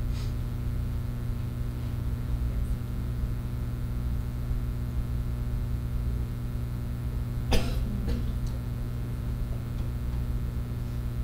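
Steady low room hum, with a person coughing once, sharply, about seven and a half seconds in.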